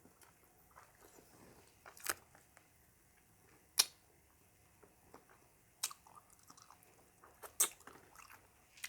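Close-up chewing and mouth sounds of someone eating braised pork leg, quiet, with a few sharp clicks spread through it.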